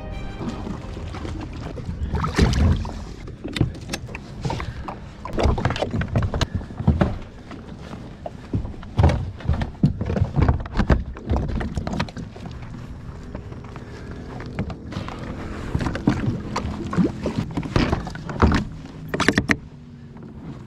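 Repeated knocks, clunks and rattles of gear being handled on a plastic pedal fishing kayak, including a hull hatch lid being opened.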